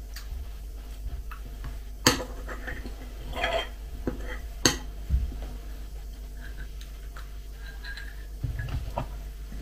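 Metal cutlery clinking and scraping against a bowl of kefir-soaked cereal: two sharp clinks a few seconds apart, with a short scrape between them and softer knocks near the end.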